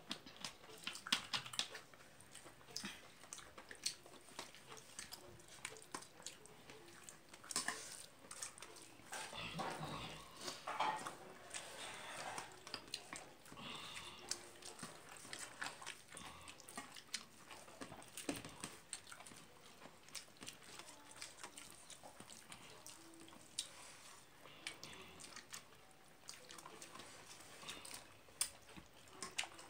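Close-up eating sounds: chewing and mouth noises, with many small clicks and scrapes of fingers mixing rice on a steel plate.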